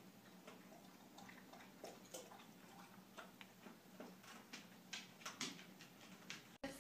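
Faint, irregular wet clicks of a cat licking a small dog's fur, coming a little more often toward the end, over a faint steady hum.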